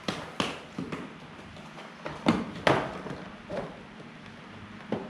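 Cardboard boxes and packaging of a Nerf accessory kit being torn open and handled: scattered clicks, rustles and knocks, with the two loudest close together a little over two seconds in.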